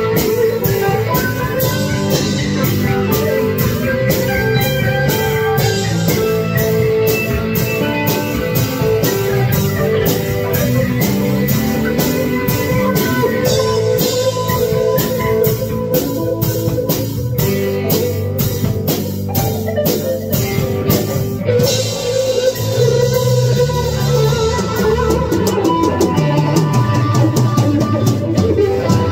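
Instrumental rock jam: electric guitars playing over a steady drum beat. About two-thirds of the way in, the cymbals open into a brighter, louder wash.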